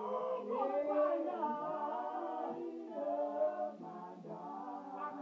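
Gospel vocal group singing a cappella in several-part harmony, holding long chords that shift every second or so.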